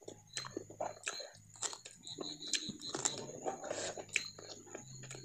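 Close-up mouth sounds of a person eating rice and curry by hand: many short clicks and smacks of chewing and lips. A low steady hum lies underneath, breaking off briefly a few times.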